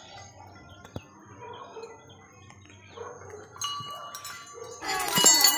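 Small metal shrine bell rung by hand: a faint lingering ring, then near the end it is struck again and rings loudly with quick repeated strikes.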